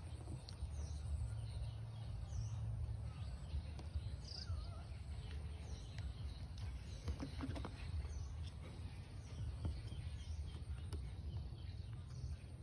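Countryside ambience: small birds chirping again and again over a steady low rumble, with a few faint clicks about halfway through.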